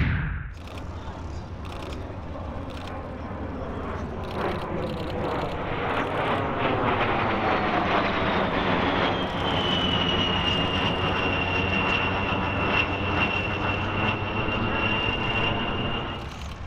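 Fairchild Republic A-10C Thunderbolt II's twin General Electric TF34 turbofan engines on a low flyby: a loud rushing jet noise with a tone that slides down as it passes, then a steady high-pitched whine. It drops off suddenly near the end.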